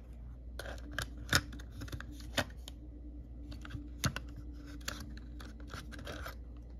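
Plastic clicks and light scraping as a cassette tape is handled and pushed into the open cassette compartment of a Sony WM-EX808 Walkman, with a few sharp clicks standing out, over a faint steady hum.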